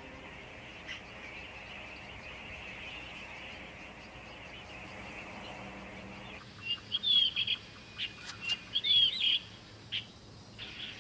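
Wild birds calling: after about six seconds of faint steady outdoor hiss, a run of short chirps and curling whistled notes, repeated irregularly.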